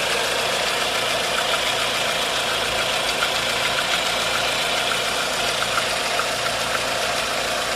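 1.4-litre 16-valve engine idling steadily with a light, irregular ticking over the running noise. It is the engine noise that stays after the timing chain tensioner and chain were checked and the accessory belt was removed.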